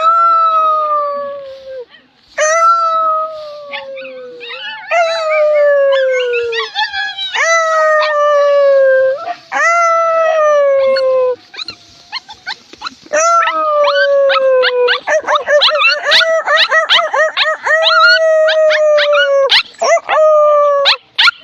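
Dog howling: a run of long drawn-out howls, each sliding slowly down in pitch, with one longer howl about two-thirds of the way in wavering up and down.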